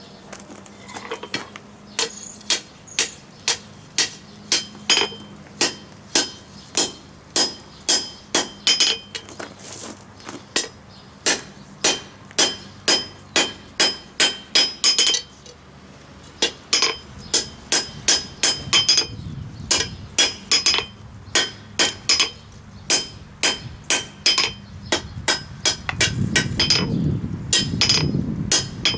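Blacksmith's hammer striking hot steel on the anvil, about two to three ringing blows a second in runs with short pauses. A low rumble joins in near the end.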